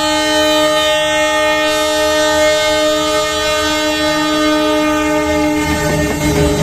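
Bangladesh Railway diesel locomotive sounding a long, steady multi-note horn as it approaches, over the low rumble of its engine. The horn stops about six seconds in, leaving the engine and running noise as the locomotive passes close by.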